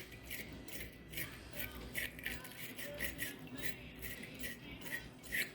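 Small wire brush scrubbing corrosion off a car battery terminal, in quick scratchy back-and-forth strokes, about three a second.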